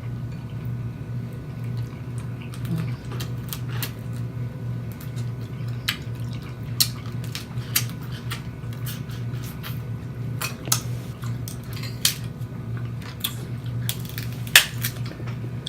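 Snow crab legs being cracked and picked apart: irregular sharp cracks and clicks of shell, some against a plate, with wet squishing, the loudest crack near the end. A steady low hum runs underneath.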